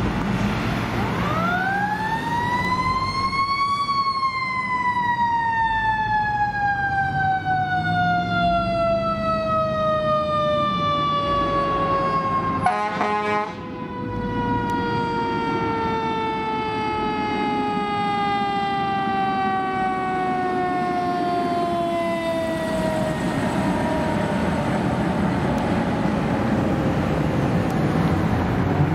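Fire engine's mechanical siren winding up quickly to a high wail, then coasting slowly down in pitch over about twenty seconds, over the engine's rumble. A short break cuts across it about halfway through.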